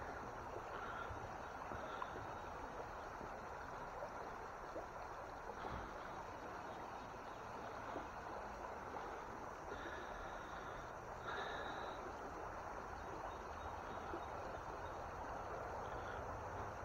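Shallow trout stream running over a rocky riffle: a steady rush of moving water.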